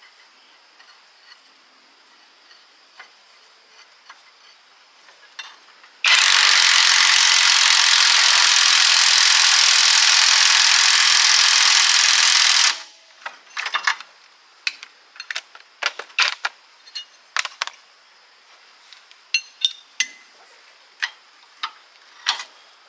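A loud, steady rushing noise from a workshop tool that starts suddenly about six seconds in and cuts off about six and a half seconds later. After it come scattered sharp clicks and knocks, typical of metal parts being handled.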